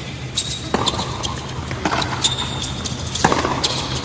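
Tennis rally on a hard court: sharp racket strikes and ball bounces every second or so, with brief high squeaks of shoes on the court, over a low steady hum.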